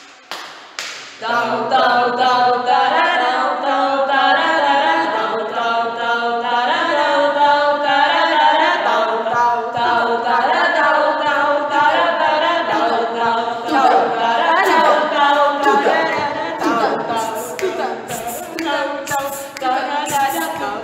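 A cappella singing: several voices in harmony holding sung notes, starting about a second in.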